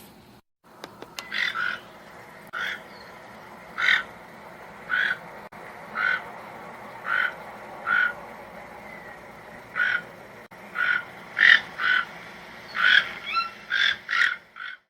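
Toucan giving short, harsh calls, about one a second at first and then faster, some in quick pairs, near the end, over a steady background hiss.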